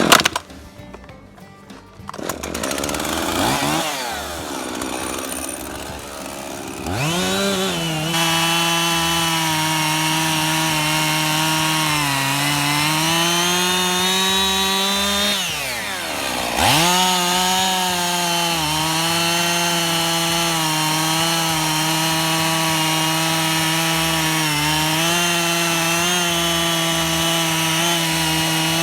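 Husqvarna 55 two-stroke chainsaw revving up to full throttle and held there while cutting wood with a hand-filed chain. It eases off about halfway, then revs back up for a second steady cut.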